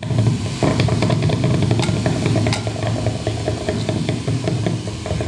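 Experimental improvised noise music: a steady low drone under a dense crackle, with many scattered clicks and rattles from struck and scraped objects.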